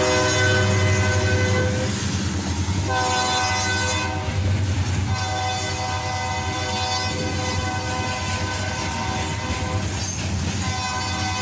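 Ferromex diesel freight locomotive's air horn blowing a chord in several blasts: a break about 2 seconds in, a short blast, a long one, and another starting near the end, the pattern of a grade-crossing signal. Under it, the locomotives' diesel engines rumble and the covered hopper cars roll past with a clickety-clack of wheels over rail joints.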